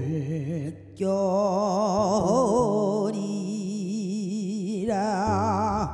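A woman singing in the Korean traditional (sori) style, holding long notes with a wide, regular vibrato, after a brief break about a second in. Steady low double bass notes sound underneath.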